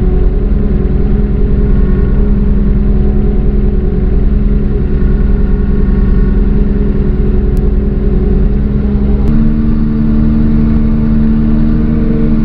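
JCB 150T skid loader's diesel engine running steadily, heard from inside the cab. About nine seconds in the engine speed rises a little and holds there.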